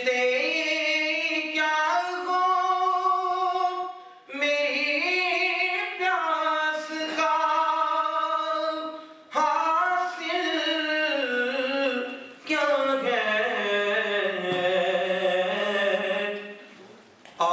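A man singing solo and unaccompanied into a microphone. He holds long, ornamented notes in four drawn-out phrases, with short breath pauses between them.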